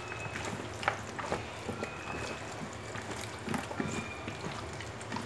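Gloved hands squishing and turning marinated chicken pieces with potato and onion in a plastic bowl: irregular wet squelches and soft clacks, over a steady low hum.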